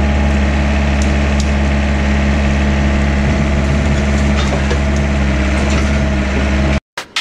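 Small tracked excavator's engine running steadily under load while its bucket swings brush into a dump truck bed, with branches cracking and snapping a few times. The sound cuts off abruptly near the end.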